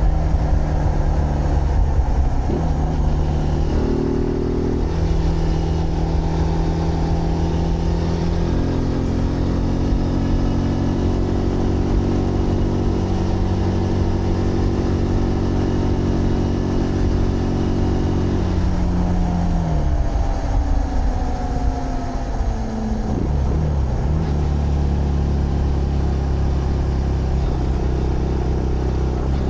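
Zontes GK 125 single-cylinder motorcycle engine running under way, heard from the rider's seat. Its pitch shifts with a few quick changes early on, holds steady for several seconds, then falls away about two-thirds in before a short blip and steady running again, with low wind rumble underneath.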